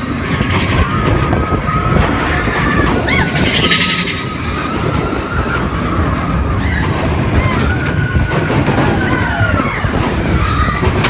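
Big Thunder Mountain Railroad mine-train roller coaster running along its track: a loud, continuous rumble and rattle, with high, held squeals that rise and fall over it at several points.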